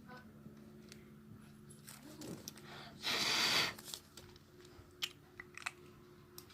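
Plastic bag being handled, with faint crinkles and clicks and one louder, brief crinkle about three seconds in.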